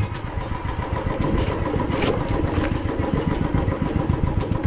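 Motorcycle engine running at low riding speed, heard close up from the rider's position, with a fast uneven putter of exhaust pulses.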